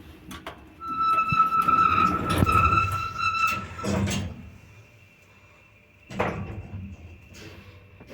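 Shcherbinka Lift Plant Ecomaks passenger lift giving a loud, steady high-pitched squeak for about three seconds, ending in a thud about four seconds in. Another knock follows about two seconds later.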